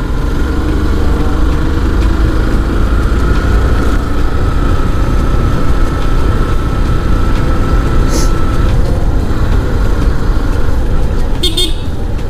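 Motorcycle engine running steadily while riding, under a heavy low rumble of wind on the microphone. A couple of brief high-pitched chirps come through, one about two-thirds of the way in and one near the end.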